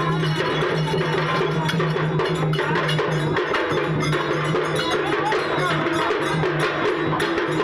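Percussion music with clanging metallic strikes in a fast, steady rhythm, over a steady low drone that drops out now and then.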